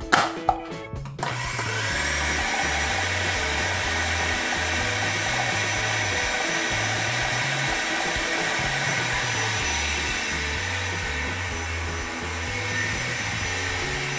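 Philips Walita food processor motor running steadily, its blade chopping a wet seasoning paste of garlic, peppers, herbs and salt. A few clicks from the pusher and lid come just before the motor starts, about a second in.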